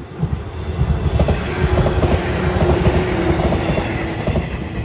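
Electric multiple-unit train passing close by, its wheels rumbling loudly with a rapid run of clacks over the rail joints. The sound comes up sharply just after the start.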